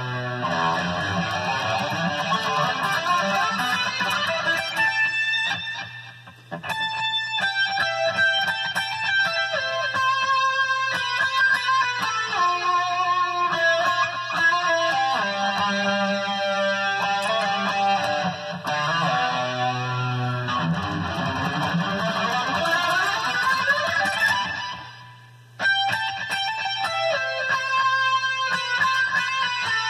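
Electric guitar being played, a run of picked notes and chords. Twice, about six seconds in and about twenty-five seconds in, the playing stops and the last notes die away before it starts up again suddenly.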